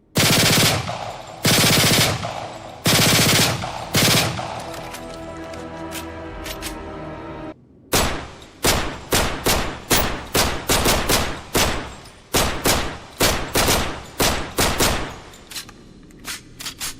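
Gunfire sound effects: four short bursts of automatic fire, a ringing tail with a steady tone, then a rapid string of single shots, about two or three a second.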